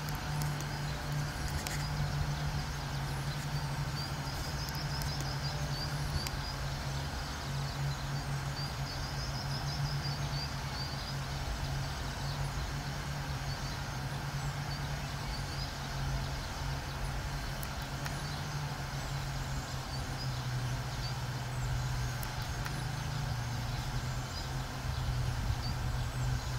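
Steady low hum of distant traffic, with small songbirds singing short trilled phrases and chips over it.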